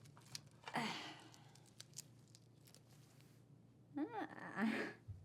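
Faint scattered clicks and a brief rustling, tearing-like noise about a second in, then a short murmured vocal sound whose pitch rises and falls, near the end.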